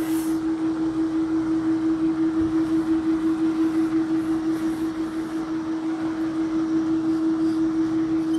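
Steady low mechanical hum with a fast, even flutter several times a second, over a faint hiss. Around the middle a cloth wipes a whiteboard, faint under the hum.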